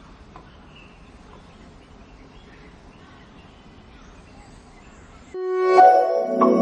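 Faint outdoor background noise. About five seconds in, a short musical jingle of held notes starts suddenly and is much the loudest thing.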